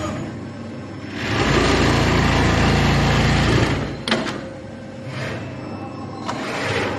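Automatic pocket welting machine at work: a loud run of fast mechanical noise for about three seconds, typical of the sewing head stitching, then a sharp clack about four seconds in and a quieter machine noise after it.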